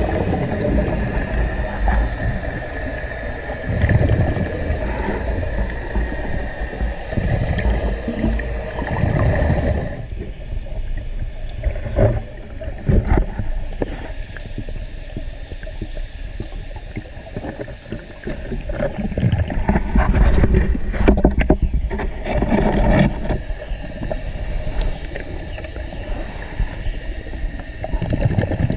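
Underwater: a scuba diver's regulator breaths and exhaled bubbles rushing in swells every several seconds. There are a few sharp clicks of rocks and gravel being handled, and a steady high whine stops about ten seconds in.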